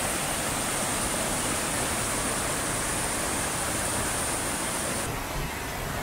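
Tiered waterfall rushing over its cascades into a pool: a steady, even rush of water that turns a little softer and duller about five seconds in.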